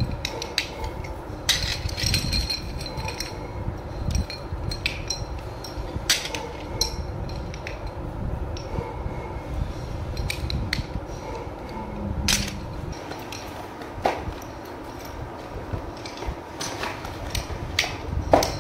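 Metal motorcycle brake shoes, springs fitted, clinking and knocking against each other as they are handled in a pile: irregular sharp metallic clinks with brief ringing.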